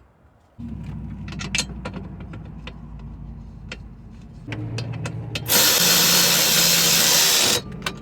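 Cordless power tool motor running for about seven seconds as a steady hum, turning much louder and harsher for the last two seconds before it stops suddenly.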